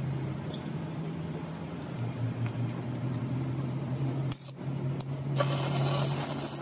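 A steady low hum. About two-thirds of the way in, a stick-welding arc strikes and crackles as the electrode welds the splined stub into the truck driveshaft tube.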